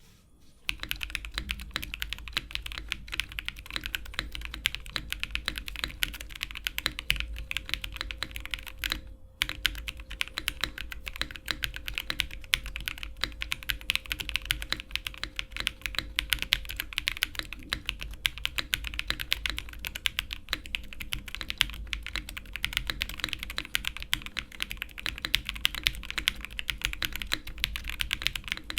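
Steady fast typing on a CIY GAS67 gasket-mount keyboard kit with lubed and filmed Epsilon switches and DMK keycaps: a dense run of keystrokes with a brief pause about nine seconds in.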